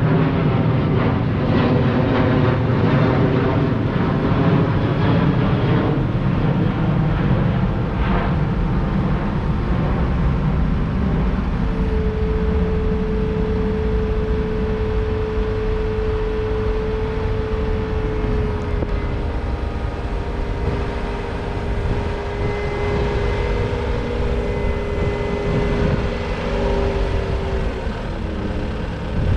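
Caterpillar 257D compact track loader's four-cylinder turbo-diesel engine running, its pitch wavering over the first several seconds. A steady whine joins about twelve seconds in and dips in pitch near the end.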